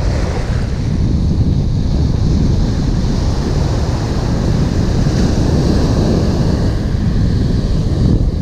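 Ocean surf breaking and washing over the sand, with steady wind buffeting the microphone.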